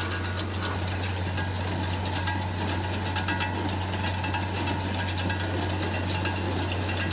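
Tractor-drawn small square baler at work: a steady engine drone under a rapid, irregular mechanical clatter and knocking from the baler.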